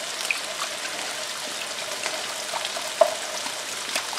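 Chicken pieces frying in oil with a steady sizzle, over light ticks of a wire whisk against a ceramic bowl as a soy-and-sesame sauce is whisked. One sharper clink comes about three seconds in.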